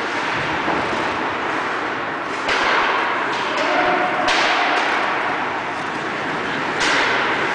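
Ice hockey practice in an indoor rink: three sharp hits, about two seconds apart, each trailing off into the hall's echo, over a steady hiss of rink noise.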